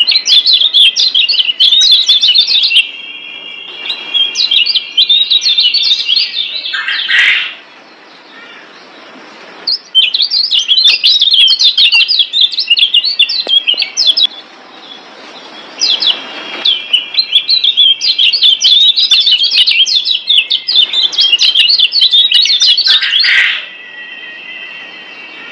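Kecial kuning (Lombok yellow white-eye) singing: rapid, chattering high chirps in long bursts of several seconds, broken by short pauses.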